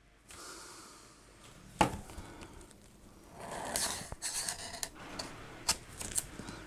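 Pocket knife cutting and scraping at the top flap of a small cardboard box to open it. There is a sharp click about two seconds in, a short scraping stretch in the middle and a few quick clicks near the end.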